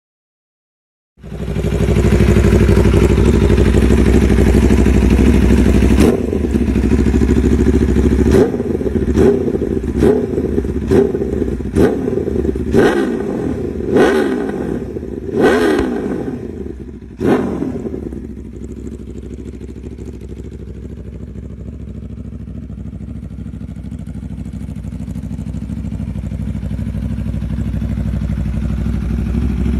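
Aprilia Tuono V4 1100 Factory's V4 engine through an Austin Racing exhaust. It comes in loud about a second in and runs steadily for several seconds. Midway it gives about nine quick throttle blips, each rising and falling in pitch, then settles to a steady idle.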